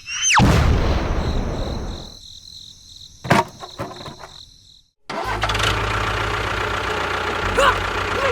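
Small engine running with a low rumble that fades over the first couple of seconds. A sharp click comes about three seconds in, then a moment of silence, and after that a steady low engine hum.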